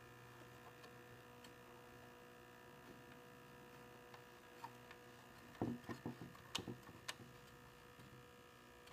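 Faint steady electrical hum, with a short cluster of light clicks and knocks about five and a half to seven seconds in.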